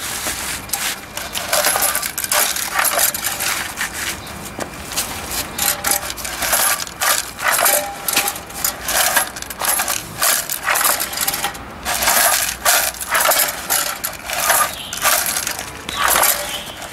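Semi-automatic feeding eyelet machine setting metal grommets into banner material: a continuous run of irregular metallic clinks and clacks.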